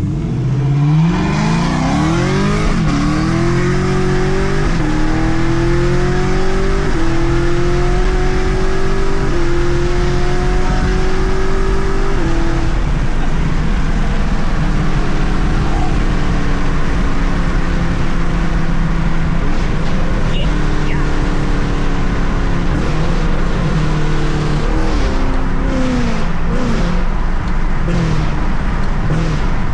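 A car engine at full throttle, its pitch climbing and dropping back at each of several quick upshifts, then settling into a steady cruise. The note falls away near the end as the car slows.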